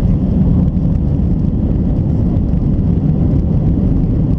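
Cabin noise of a Boeing 767-300 on its takeoff roll: a loud, steady, deep roar of the jet engines and the wheels running on the runway, with a few faint knocks.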